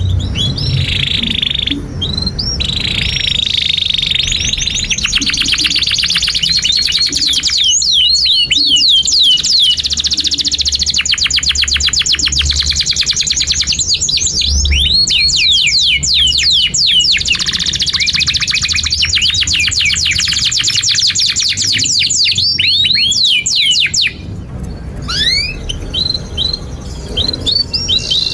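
Domestic canary singing a long song of fast trills, rapidly repeated high notes and sweeping chirps, with a few brief breaks between phrases.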